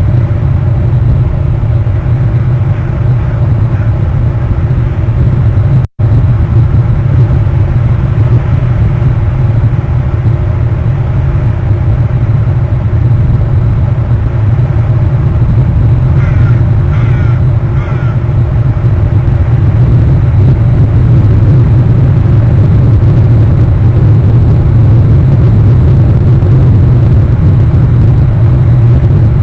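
A loud, steady low rumble with no speech, briefly cut out about six seconds in. About halfway through there are three short, faint chirps.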